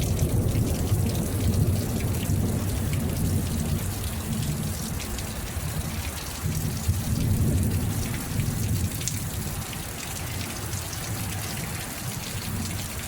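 Steady rain falling, with the dense patter of drops hitting a surface. A low rumble underneath slowly dies away, and the whole sound grows gradually quieter.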